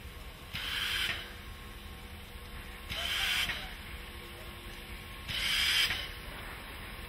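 Class 50 2-10-0 steam locomotive moving at a crawl: three slow, hissing chuffs of steam, about one every two and a half seconds, over a steady low rumble.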